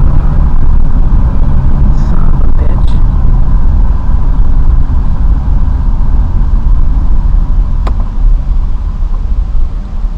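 A car's loud, steady low rumble, easing off near the end, with one sharp click just before eight seconds in.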